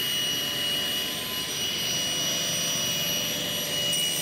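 Table saw running steadily, its blade spinning: an even whirring hiss with a thin high whine that does not change.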